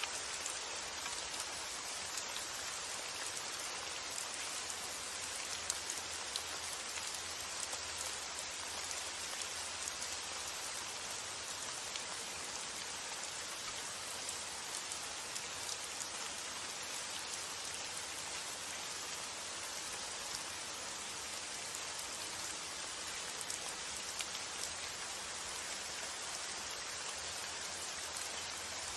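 Steady rain falling, a continuous hiss dotted with the ticks of separate drops.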